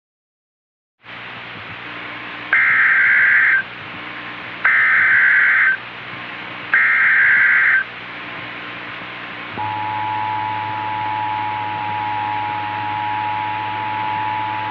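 Emergency Alert System header: three one-second bursts of screeching data tones, about a second apart. About nine and a half seconds in, the steady two-tone EAS attention signal starts. All of it sits over steady radio static and a low hum.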